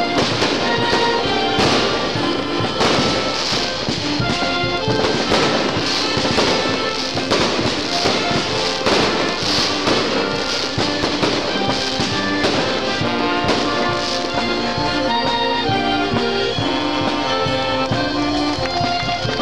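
Aerial fireworks bursting in quick succession over steady background music; the bangs thin out near the end while the music carries on.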